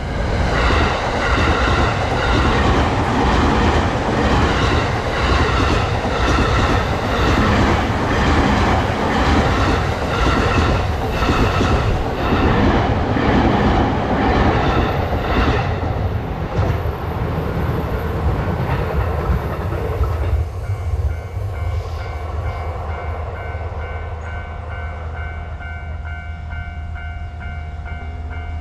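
Train passing a Japanese railway level crossing, its wheels clacking regularly over the rail joints, while the crossing's warning bell rings on. The train noise fades about twenty seconds in, leaving the bell ringing alone.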